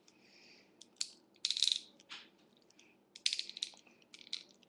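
Short clusters of small, sharp plastic clicks and scrapes: a fine-tipped knife carving out the end of a plastic pen barrel.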